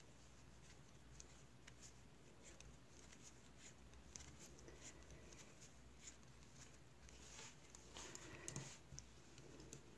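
Faint clicks and soft rustling of wooden knitting needles and yarn as stitches are worked, a little louder around eight seconds in.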